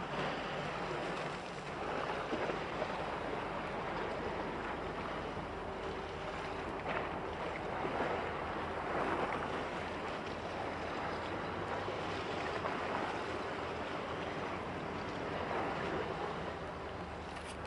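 Steady noise of wind and water with a faint low hum underneath, as a large bulk carrier passes close offshore.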